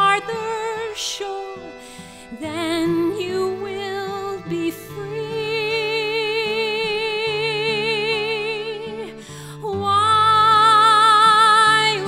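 Musical-theatre ballad: a woman singing long held notes with vibrato over soft accompaniment. About ten seconds in she rises to a louder, higher held note.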